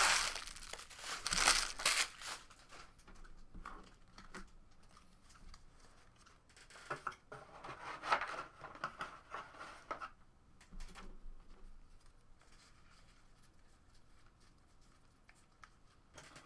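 Trading-card pack wrappers being crinkled and torn open, with cards handled, in irregular bursts that are loudest at the start and again about halfway through.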